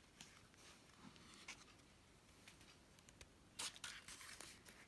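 Faint handling noise of a DJI Osmo Mobile 3 gimbal and its hard case: scattered soft clicks and short scrapes of plastic and fabric, with a brief louder scrape about three and a half seconds in.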